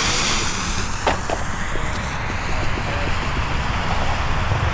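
Burning fuse of a Funke Honey Badger firecracker hissing steadily as it throws sparks, with a small click about a second in and a steady low rumble underneath.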